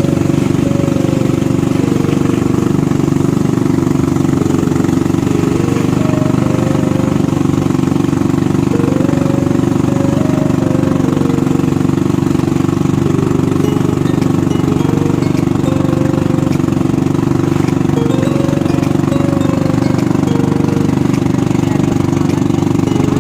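Small combustion engine running steadily at an even speed.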